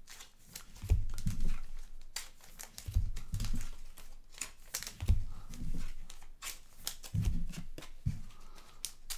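Trading cards and card boxes being handled on a tabletop: several soft thumps as things are set down, with clicks and rustling of card stock and wrappers in between.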